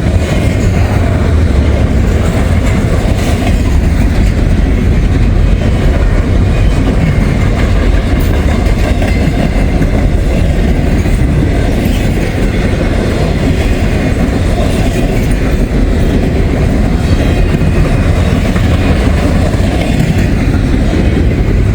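Long intermodal freight train's container cars rolling past, a loud steady rumble of steel wheels on the rails.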